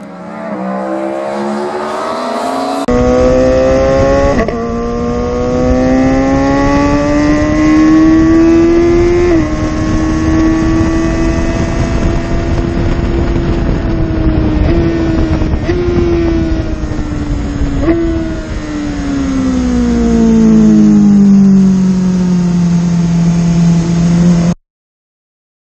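Sportbike engine heard onboard at speed on a race track, its note climbing under acceleration with brief hitches at gear changes, holding high through the middle, then falling away as the bike slows for a corner. A heavy rush of wind runs underneath, and the sound cuts off abruptly near the end.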